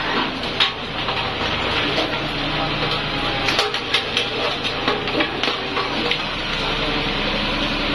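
A road roller's engine runs steadily while its steel drum rolls over a heap of aftermarket motorcycle exhausts, the metal pipes and mufflers crunching and clanking under it with many sharp cracks.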